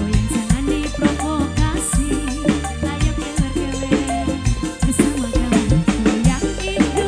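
Live dangdut band music with a steady drum beat and a melody line gliding up and down.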